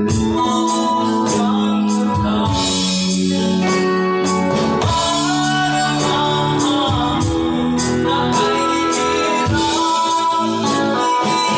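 A small band plays a slow love song live: a man sings over keyboard, electric bass and electric guitar, with cymbal hits keeping a steady beat.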